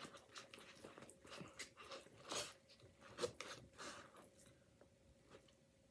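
A utensil stirring poutine in a paper cup, faint soft scrapes and squishes with a few sharper clicks, followed by quiet chewing.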